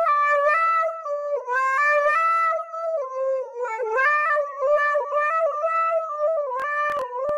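Husky howling in long, held notes that waver and step up and down in pitch, like singing. A few sharp clicks come near the end.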